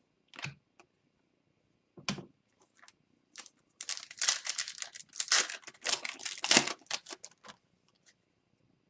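A foil trading card pack being torn open and its wrapper crinkled, a dense crackle lasting about three and a half seconds from about four seconds in, after a couple of light taps from the cards being handled.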